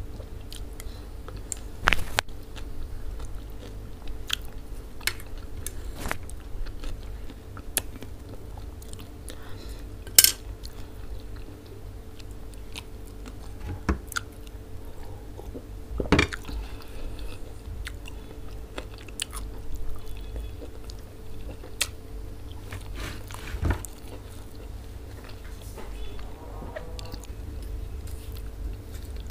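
Close-miked chewing and biting of food, with crunchy bites and sharp clicks scattered through, over a faint steady hum. The loudest click comes about ten seconds in.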